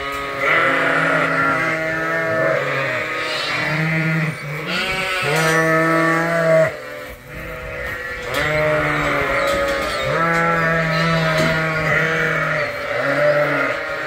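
A flock of Suffolk ewes and lambs bleating, one long call after another with several voices overlapping, deep ewe calls mixed with higher ones.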